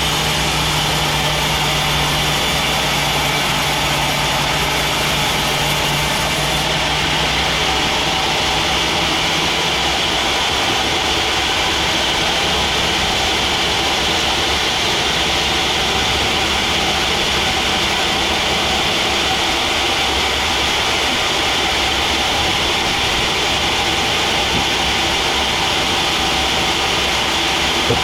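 Sawmill machinery running steadily, a continuous loud mechanical noise; a low hum in it fades out about a third of the way through.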